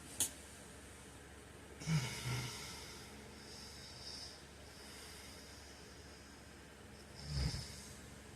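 A sleeping man snoring: two short low snores, one about two seconds in and a second, deeper one near the end, with soft breathing in between. There is a brief sharp click just after the start.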